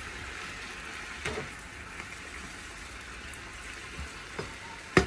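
Chopped sweet potato leaves sizzling steadily in a wok as they are stirred with a spatula. There are occasional sharp clicks of the spatula against the pan, with a quick cluster of louder knocks at the very end.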